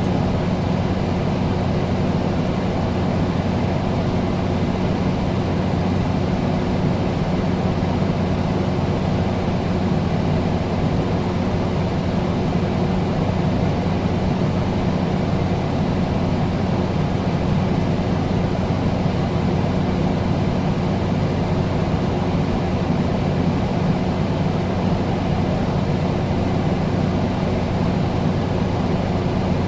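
Air conditioner running steadily: an even whirring noise over a low, constant hum.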